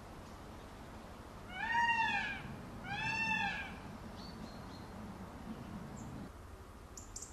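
Indian peafowl calling twice in quick succession. Each call lasts about a second and rises then falls in pitch, and the first is the louder.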